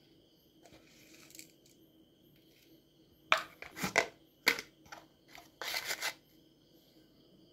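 Small spoon scraping and tapping on a ceramic plate as ground spices are spooned on and mixed, in a few short clusters starting about halfway in.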